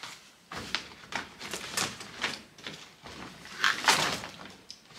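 Packaging rustling and crinkling as shopping items are handled, in a string of short bursts, the loudest about four seconds in.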